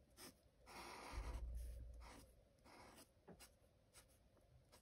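Black marker rustling faintly across sketchbook paper in several short strokes, filling in black stripes.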